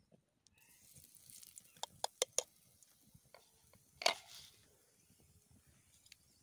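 Hot oil in a frying pan sizzling softly as spoonfuls of batter go in, the hiss starting about half a second in and fading away. A few sharp clicks come around two seconds in, and a louder one about four seconds in.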